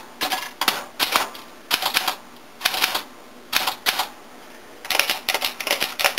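Keys of a 1967 Olympia SF portable manual typewriter striking the paper: typing in short bursts of clacking keystrokes with brief pauses between them, and a longer, denser run near the end.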